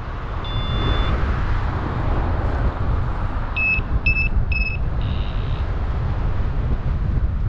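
Wind rushing over the microphone of a paraglider pilot in flight. Over it a flight variometer beeps: one held tone near the start, three short beeps about half a second apart around the middle, then a fainter held tone.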